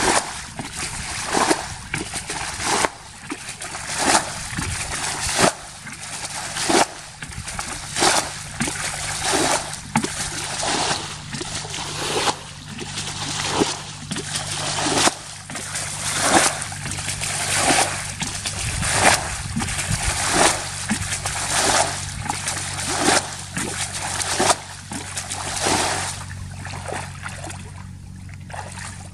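Muddy pond water being bailed with a plastic bucket: a splash of water thrown out and sloshing in the pond, repeating about every second and a half, stopping near the end.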